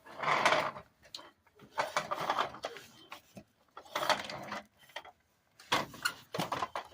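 About five short rasping bursts of rapid clicks, each lasting under a second, with gaps between them.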